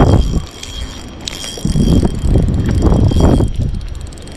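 Fishing reel being cranked, a steady mechanical whir with fine clicking, over bursts of low rumble on the microphone.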